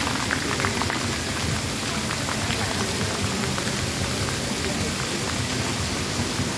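Arching fountain water jets spraying down onto a wet paved walkway: a steady splashing with a fine patter of falling droplets.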